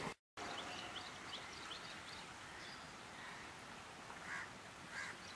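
Small birds chirping in quick, repeated short notes, with a few louder, harsher calls about four and five seconds in, over a faint low rumble from the receding diesel-hauled train. The sound drops out for a split second just after the start.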